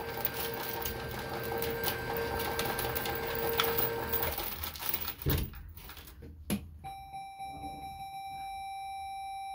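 Coin-operated fruit slot machine paying out a win: coins clatter into the tray in a quick run of clicks over a steady electronic tone for about four seconds. A couple of knocks follow, then a steady electronic tone of several pitches sounds from about seven seconds in.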